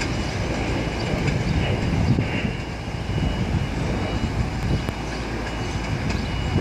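New York City Subway 6 train running on elevated steel track, its wheels rumbling and clattering steadily on the rails. A faint high-pitched tone runs above the rumble.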